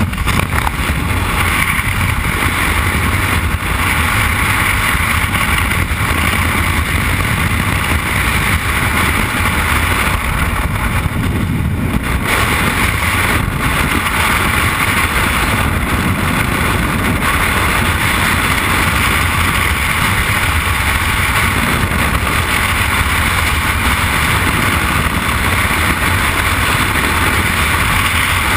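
Skydivers' freefall airstream blowing across a helmet-mounted camera's microphone: a loud, steady wind rush that starts suddenly as the jumpers leave the aircraft door.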